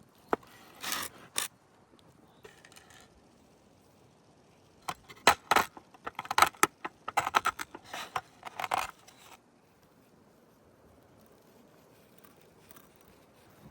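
Metal objects clinking and clattering as they are handled: a few sharp clicks in the first second and a half, then a dense run of clinks from about five to nine seconds in.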